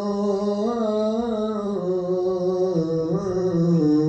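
A man chanting an Urdu noha (mourning lament), holding one long sung note whose pitch wavers in slow bends up and down.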